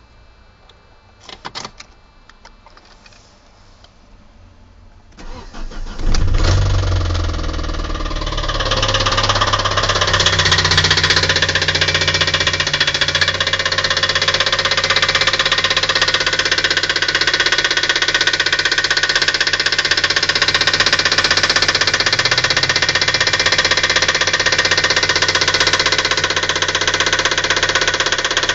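A couple of clicks, then a Calibra's C20XE 2.0-litre 16-valve four-cylinder engine cranks and starts about six seconds in and keeps running steadily with a heavy engine knock.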